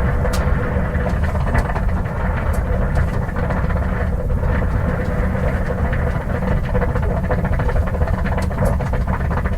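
1950 Ford inline-six flathead engine idling steadily while the car overheats, a low even rumble with a steady hum and scattered light ticks.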